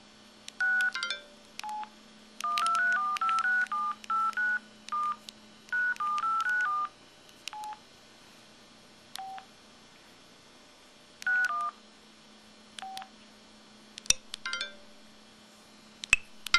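Samsung SCH-E110 mobile phone's keypad tones: short two-note DTMF dial beeps as keys are pressed, some singly and some in quick runs of several. A few short clicks follow near the end.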